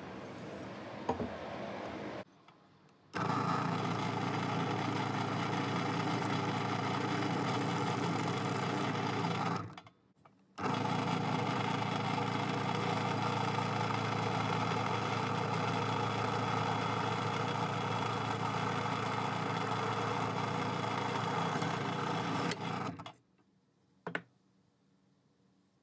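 Benchtop drill press motor running steadily in two long stretches, with a short break between them, while holes are bored in a pine board.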